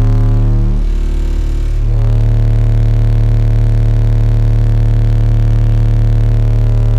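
Two 12-inch Untouchable Sounds King Series car subwoofers on 1500 watts playing a loud, steady low bass test tone with a stack of buzzing overtones. The note switches to a new pitch between one and two seconds in, then holds steady.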